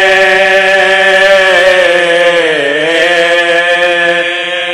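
Soz khwani: men's voices chanting a marsiya unaccompanied, holding one long note that sags in pitch a little past halfway and then rises back.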